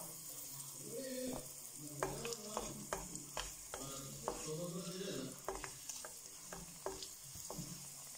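A lump of asafoetida frying in a little hot oil in a kadai: a faint, steady sizzle broken by scattered sharp pops and clicks.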